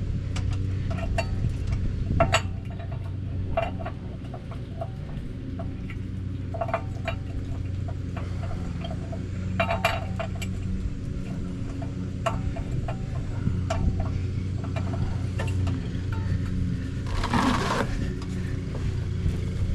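Metal clinks and ticks from the crank tool turning the Infiniti QX80's spare-tire hoist to lower the spare, each with a short metallic ring, coming irregularly every second or so over a steady low hum. A brief scraping rustle comes near the end.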